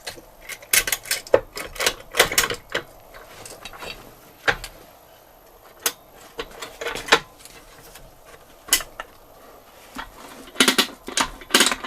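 Irregular metallic clicks and knocks, some in quick clusters, as the two halves of a Vespa engine casing are worked together and seated, with a denser run of clicks near the end.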